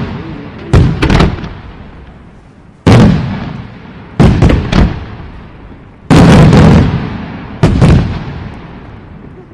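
Fireworks shells bursting: a string of loud booms every second or two, some in quick doubles and triples, each trailing off in a long rolling echo.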